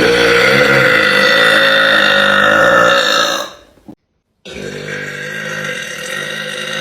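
A woman's long, drawn-out burps heard over a voice-chat call. A loud one lasts about three and a half seconds, then after half a second of silence a second, somewhat quieter one starts about four and a half seconds in.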